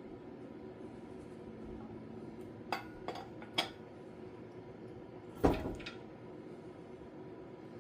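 Metal clinks and a clunk as a heavy Farmall 450 wheel hub is worked onto its axle by hand: three light clinks in quick succession, then one louder knock with a short ring about two seconds later.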